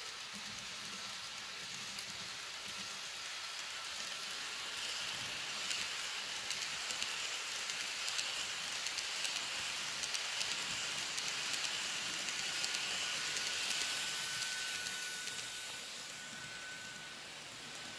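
N scale model train, an Atlas NJ Transit ALP-45DP with multilevel coaches, running past on sectional track: a hiss of metal wheels on the rails with many small rapid clicks and a faint high whine. It grows louder as the train comes by, then fades over the last few seconds.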